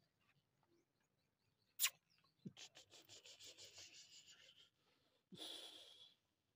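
Faint, quick rasping breaths of a Pakistani bully dog panting with its mouth open, about five a second for two seconds, with a shorter rasp near the end. A sharp click comes just before the panting starts.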